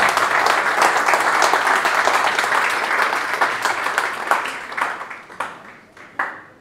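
Audience applauding: dense clapping that thins out and fades over the last couple of seconds, ending in a few scattered claps.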